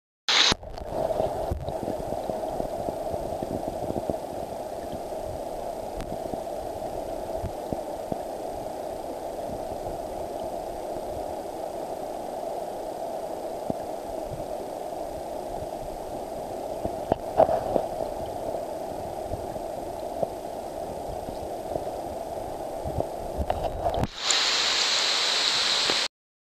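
River current heard underwater: a steady, muffled rush of flowing water with a few clicks and knocks. About two seconds before it cuts off, it changes to a brighter hiss.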